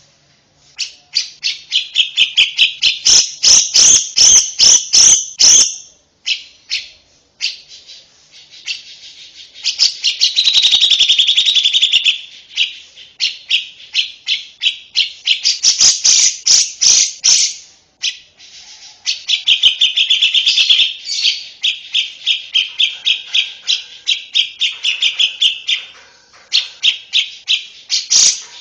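Lovebird singing in long, rapid chattering trills, phrase after phrase with short breaks between them.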